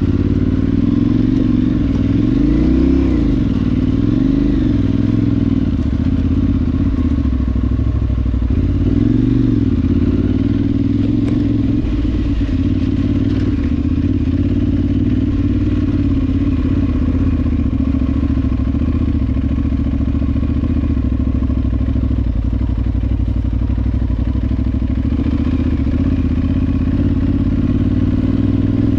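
Adventure motorcycle's parallel-twin engine running under way. The revs rise and fall a few times in the first ten seconds, then hold fairly steady.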